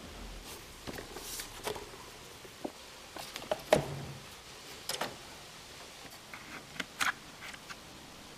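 Handling noise: scattered light clicks, taps and knocks, the loudest a little under halfway through.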